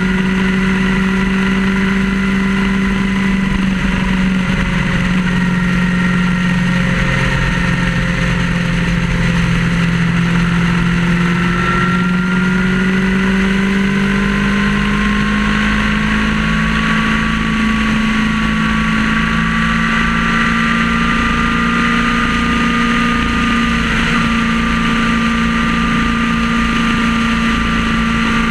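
Vehicle engine running at road speed under a steady haze of tyre and wind noise, its pitch slowly rising through the middle as it gains speed.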